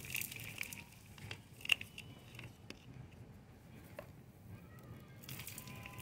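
Hands scooping and pressing loose potting soil around a plant in a plastic pot: faint scattered crackling and rustling, with one sharper crackle about two seconds in.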